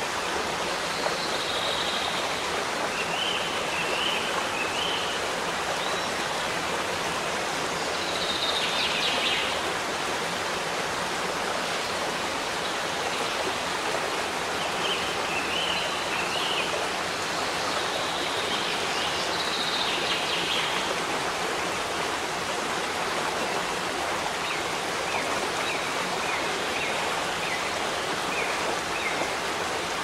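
Forest waterfall rushing steadily, with birds singing short high phrases over it every few seconds and a run of quick notes near the end.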